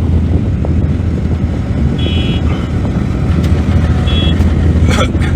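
Mining excavator's diesel engine running with a steady low drone. Two short high beeps come about two seconds apart, and a sharp knock sounds near the end.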